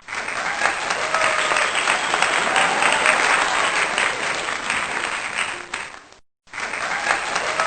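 Crowd applauding and cheering. It breaks off for a moment about six seconds in, then starts again.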